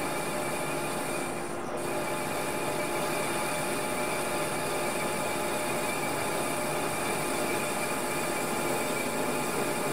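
Manual lathe running while a hand-ground high-speed-steel face trepanning tool cuts dry into the end face of the spinning workpiece during a test plunge. The result is a steady scraping cutting noise with a constant hum underneath.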